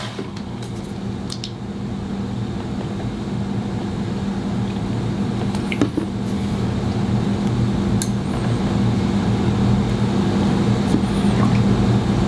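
Steady electric motor hum that grows slowly louder, with a few light clicks of small metal parts being handled.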